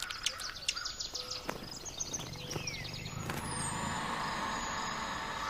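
Small birds chirping in quick, short, high notes over a natural ambience, giving way after about three seconds to a steadier background hum.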